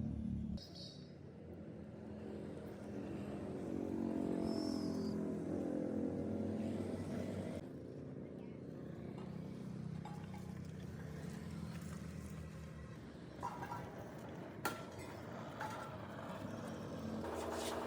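An engine running, its pitch drifting up and down, with a few sharp clinks near the end.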